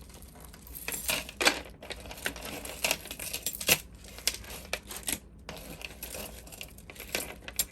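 Costume jewelry clinking and rattling as it is handled: an irregular run of small, sharp clicks of metal chains and beads knocking together.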